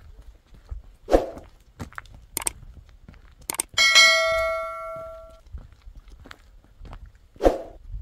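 Footsteps on gravel, with a few short clicks. About four seconds in comes a bright bell-like ding, the loudest sound, ringing out for over a second: the sound effect of a subscribe-button animation.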